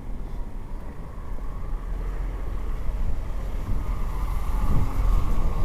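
Wind rumbling on the microphone over street traffic noise, getting louder in the second half as a vehicle comes closer.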